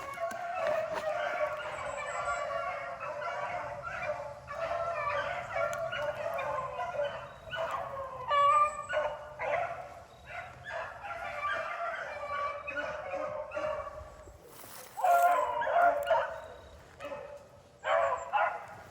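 A pack of rabbit-hunting hounds baying together in a continuous chorus of overlapping voices as they run a rabbit. There are louder, closer calls about eight seconds in, around fifteen seconds, and again near the end.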